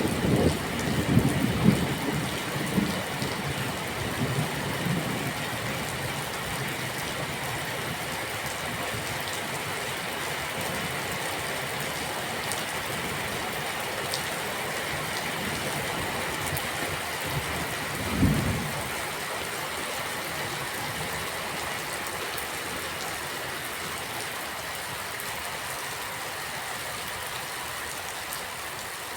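Steady rain falling, with the tail of a thunder roll rumbling low and dying away over the first few seconds. A brief low rumble swells and fades about two-thirds of the way through.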